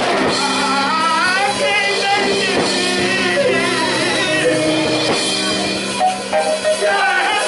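Live gospel music: a singer's voice bending and wavering over sustained keyboard chords, with drums.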